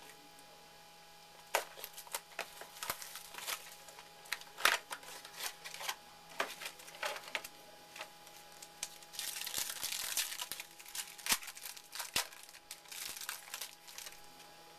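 Packaging being handled and torn open by hand as a mini box of trading-card packs is opened: irregular crinkling and tearing with scattered sharp crackles, busiest about two-thirds of the way through.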